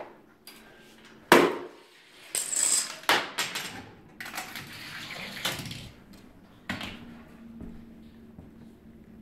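Parts of a home-made Rube Goldberg machine knocking and clattering as the chain reaction runs: a sharp loud bang about a second in, then a string of rattles and clatters with a rushing noise, and another knock near the end.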